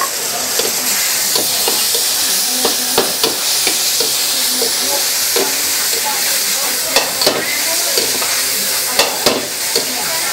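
Food sizzling steadily in a hot wok while a metal ladle stirs and scrapes it. Irregular sharp clinks of the ladle striking the wok come through, the loudest about seven and nine seconds in.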